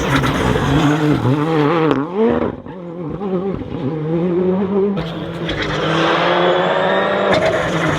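Rally car engine revving hard, its pitch rising and falling with quick throttle changes. It drops away briefly about two and a half seconds in, then climbs steadily in pitch toward the end as the car accelerates.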